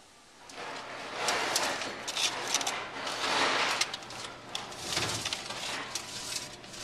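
Foil-lined roasting pan and oven rack being handled with pot holders: crinkling foil with metal rattling and scraping, starting about half a second in.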